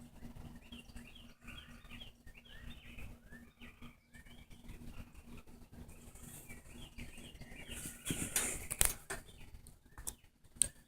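A chorus of frogs calling, many short rising chirps overlapping one another. About eight seconds in, a louder rustle covers them, followed by a few sharp clicks near the end.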